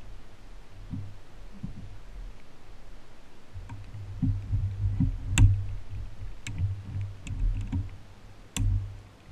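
Plastic clicks and knocks as a black plastic mesh tube is unhooked and worked out of the filter housing lid, the sharpest click about halfway through and another near the end, over a steady low hum.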